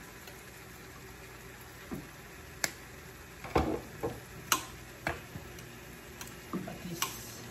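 A wooden spoon stirring and knocking against a pan of simmering sauce while seasoning shakers are shaken over it: a scattered run of about eight sharp clicks and knocks, some with a dull thud, over a steady low hiss.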